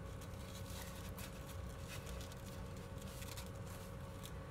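Faint rustles and a few light ticks of paper and ribbon being handled, over a steady low hum.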